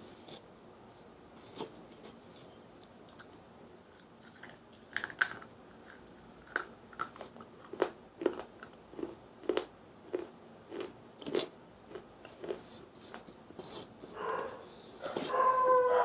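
Teeth biting and crunching a small fired-clay diya: sharp cracking bites come about one or two a second through the middle. Near the end a louder, pitched sound rises over them.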